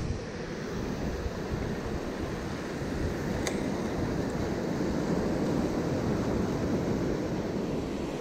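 Small waves washing in over the sand in a steady hiss, with wind rumbling on the microphone.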